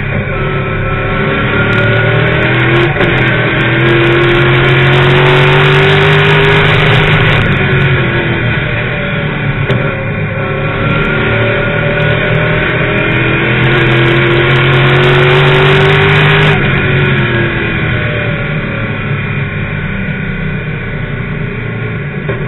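ASA late model race car's V8 engine heard from inside the cockpit, pulling hard with its pitch climbing down the straights, then backing off into the turns, twice.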